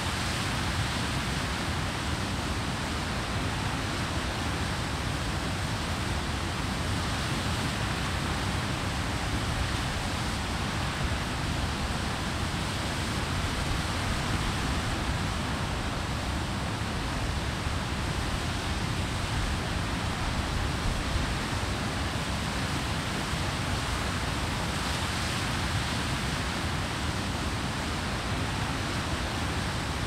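Water pouring over a weir: a steady, unbroken rushing noise with a deep low rumble beneath.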